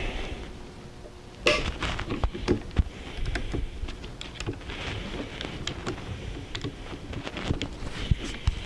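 Irregular clicks and taps of small metal tools and parts being handled while scope-mount screws are tightened with a torque wrench, starting with a sharp knock about a second and a half in.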